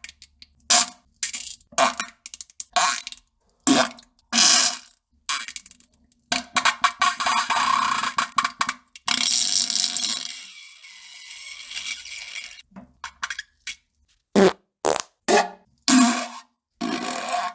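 A string of farts, some short and sharp, some long and drawn out, with brief gaps between them; the longest stretch comes in the middle.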